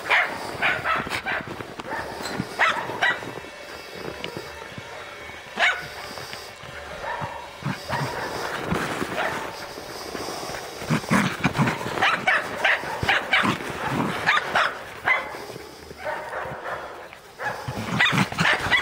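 Scottish Terrier giving short, repeated play barks while chasing a football, in bursts with pauses between them, the longest run in the second half.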